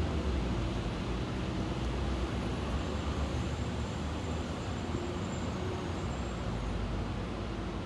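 Steady low rumbling background noise of the open air, with no distinct events.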